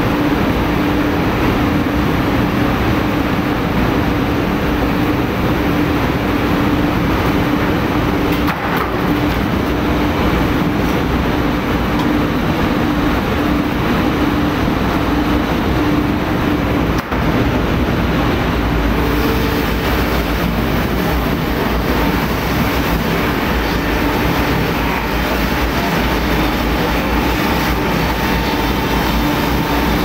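A sawmill line running: log chain conveyors and a PR Forta 630 twin-shaft circular-saw canter, its electric motors and blades turning, make a loud, steady mechanical din with a steady hum. About two-thirds of the way in the noise turns harsher, with more hiss and a deeper rumble.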